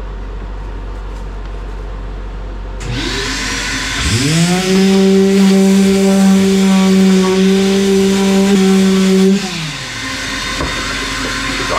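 Electric random orbital sander with 120-grit paper, its dust port on a vacuum hose, scuffing a fiberglass bathtub surface. A hiss comes in about three seconds in, the motor spins up to a steady hum about a second later, runs for about five seconds, then winds down near the ten-second mark.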